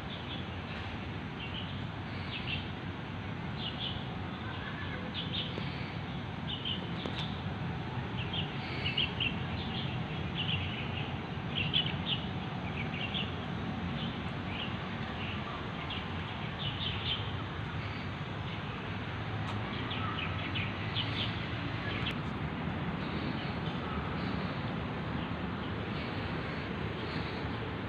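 Small birds chirping in short, repeated calls over a steady low background rumble of town traffic.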